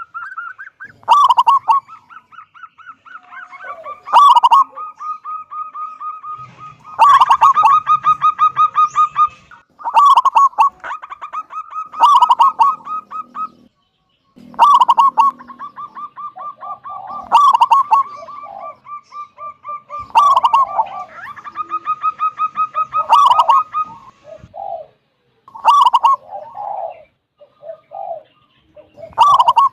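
Zebra dove (perkutut) singing: loud staccato cooing phrases that come about every two to three seconds, each a sharp note followed by a fast rattling trill.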